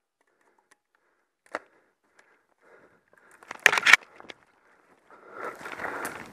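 A hunter moving through forest undergrowth. There is a faint click about a second and a half in, then a short burst of clothing and gear brushing against branches around four seconds. After that come steady footsteps rustling through dry leaf litter near the end.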